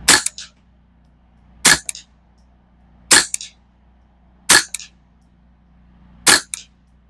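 Ruger 10/22 semi-auto .22 rimfire rifle firing five single shots, about one every one and a half seconds. Each sharp crack is followed by a fainter second crack about a quarter second later.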